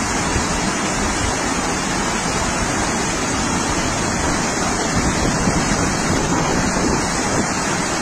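Wadi in flood: a torrent of floodwater rushing steadily.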